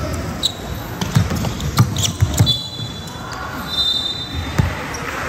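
Basketball bouncing on a wooden indoor court during a game, a few sharp thumps that echo in the large hall, with two brief high squeaks in the middle.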